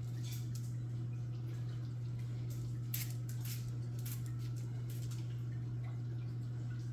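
Saltwater reef aquarium's equipment running: a steady low hum of its pumps, with faint scattered drips and ticks of water from the tank's circulation. A slightly louder tick comes about three seconds in.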